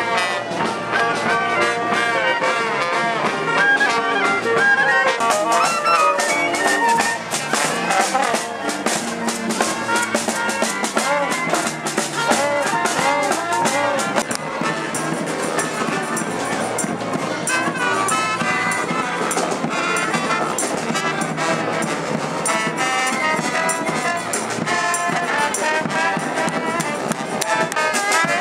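Street brass band playing, trumpets and trombones over drums, with the drumming heaviest through the middle.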